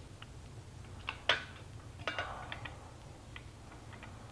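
A few light metallic clicks and clacks from a steel folding military trench shovel being handled and its hinged blade moved, the sharpest a little over a second in and a short cluster about two seconds in.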